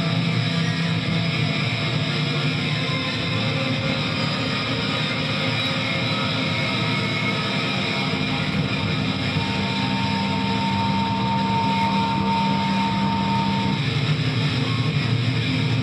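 Live distorted electric guitar played loud through an amplifier: a dense, unbroken wall of noisy sound. A steady held note rings out partway through for about four seconds, then stops.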